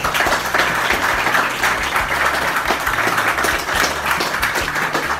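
A roomful of people applauding steadily.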